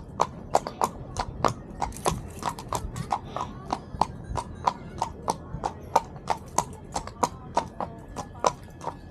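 Horse's hooves clip-clopping, a quick, steady run of sharp knocks, about four to five a second.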